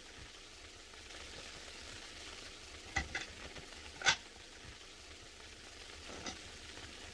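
Steady hiss of an early sound-film track with a few light clinks of crockery set down on a table. There are two clinks about three seconds in, a sharper one about four seconds in, and a faint one near the end.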